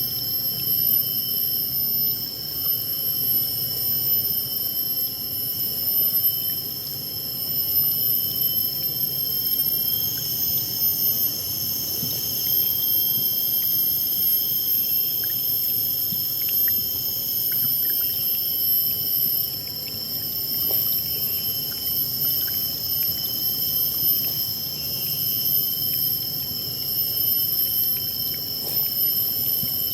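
River water flowing and splashing over rocks, a steady rushing, with a steady shrill whine of several high pitches held on top of it throughout.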